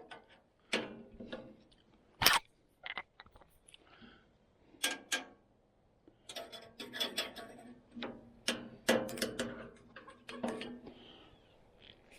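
Irregular metallic clicks, clinks and scrapes of wrenches working a turnbuckle and its lock nut on a sawmill, with one sharp loud click a little over two seconds in.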